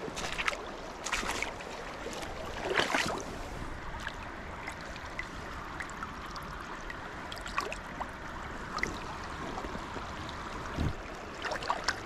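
Shallow creek water running steadily over rocks, with a few short splashing, rustling noises in the first three seconds and again near the end.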